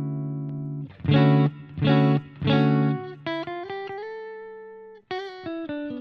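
Clean electric guitar played through a Fender Tone Master Pro amp modeller with a plate reverb. A held chord rings out and stops about a second in, then three short chord stabs follow, then a line of single notes.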